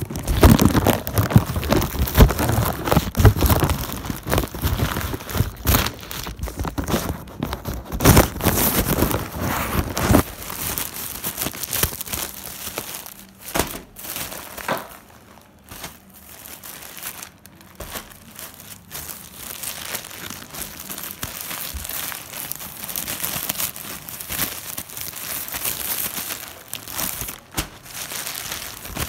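Plastic courier mailer and inner plastic packaging being torn open and crumpled by hand: continuous crinkling and tearing, busiest and loudest in the first ten seconds, then softer handling.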